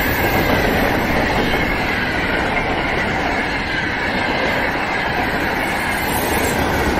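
Electric multiple-unit passenger train passing close by at speed: a steady rush of wheels on the rails, with faint high tones that slowly fall in pitch.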